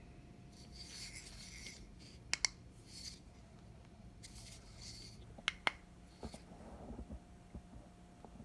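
A flashlight being handled: soft rubbing and scraping, broken by a few sharp clicks.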